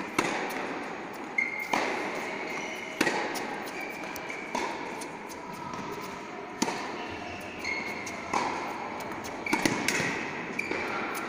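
Tennis rally on an indoor hard court: sharp racket strikes and ball bounces about every one to two seconds, each echoing in the large hall.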